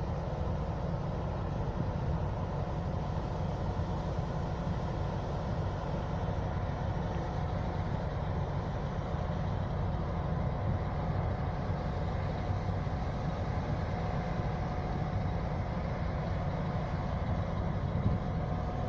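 M62 diesel locomotive's two-stroke V12 engine running with a steady low rumble, a thin steady whine becoming clearer about halfway through.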